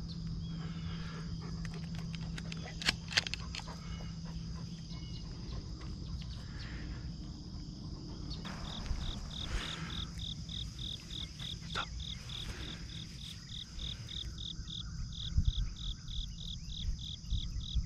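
Insects calling: a steady high trill, joined about halfway through by a second insect chirping in quick even pulses, about four a second. A single sharp click about three seconds in.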